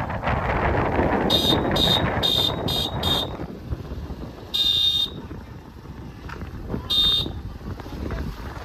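Motorcycle ride with wind rushing over the microphone and a horn beeping in short high bursts: five quick beeps in the first few seconds, then a longer beep and one more later. The wind noise drops off after about three seconds as the bike slows.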